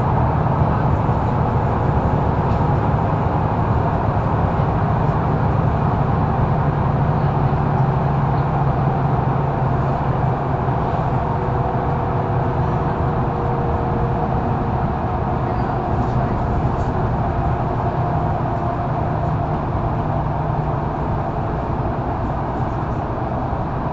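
Mercedes-Benz Citaro O530 intercity bus driving, heard from inside the passenger cabin: a steady drone of the diesel engine and drivetrain over road noise.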